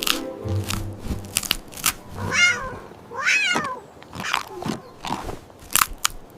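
A cat crunching on candy in sharp, separate crunches, with two meows one after the other in the middle.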